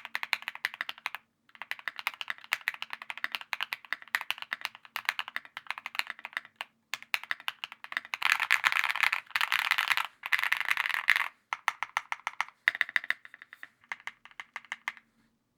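Typing on a Cycle7 custom mechanical keyboard with an aluminium plate: quick runs of keystrokes with short pauses, and a faster, unbroken flurry of keys from about 8 to 11 seconds in.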